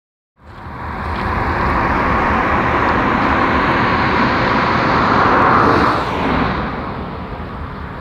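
A road vehicle passing close by, a steady rushing of tyre and engine noise with a low rumble that swells and then falls away about six seconds in.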